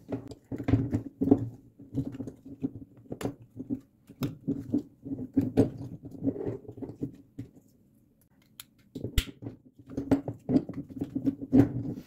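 Hands working a plastic piece back into a folding steel bike lock: irregular scraping and rubbing with many small clicks and knocks of plastic and metal, broken by a short pause about two thirds of the way through and a sharp click after it.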